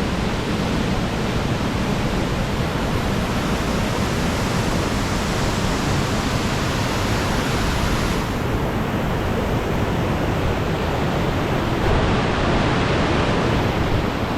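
Glen Ellis Falls: water pouring down the falls in a steady rush, with a slight change in tone about eight seconds in.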